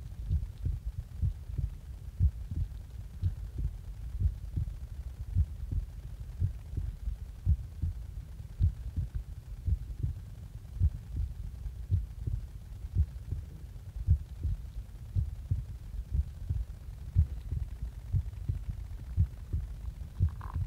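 A person's heartbeat just after waking up, a steady lub-dub rhythm of low thumps a little under a second apart.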